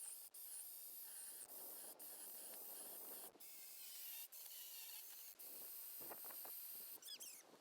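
Faint hissing from burning wooden posts, with a few sharp pops and some thin wavering high whistles, as from damp wood steaming in the fire.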